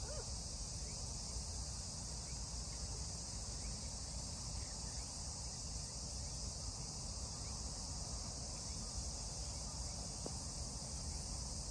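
Steady, unbroken high-pitched chorus of insects in the riverside grass, over a low rumble.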